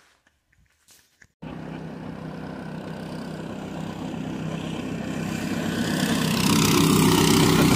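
Predator 212cc single-cylinder engine of a homemade radio-controlled plywood boat running at speed. It cuts in after about a second and a half of near silence and grows louder as the boat comes closer, with a hiss of spray near the end.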